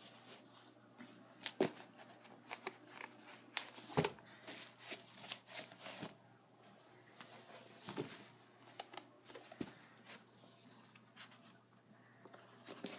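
Handling noise: scattered rustles and clicks with a few soft thumps, the loudest about four seconds in, as shoes are moved about on a carpet.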